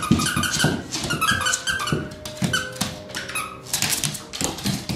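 Quick clusters of short, high-pitched squeaks during rough floor play with a small Shih Tzu.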